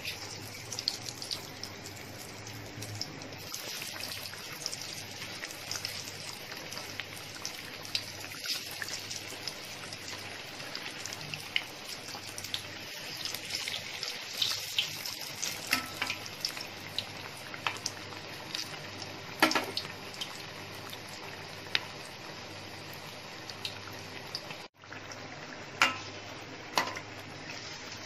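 Battered stuffed chillies deep-frying in hot oil in a steel kadhai: a steady sizzle full of small pops and crackles. A few sharper taps come from the steel slotted spoon in the pan.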